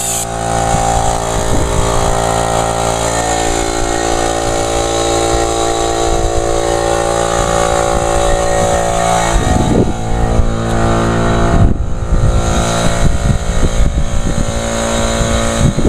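Craftsman 1.5 hp 3-gallon air compressor running steadily, its motor and pump loud as they build tank pressure toward the cut-off, around 120 psi.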